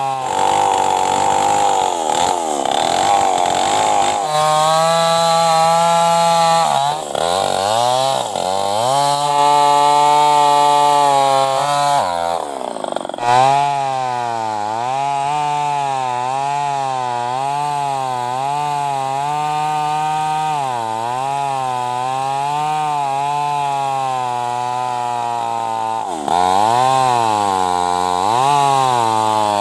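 New West 588 two-stroke chainsaw with a straight-through exhaust (no muffler) running at high revs, its pitch wavering up and down again and again, with a brief drop about twelve seconds in.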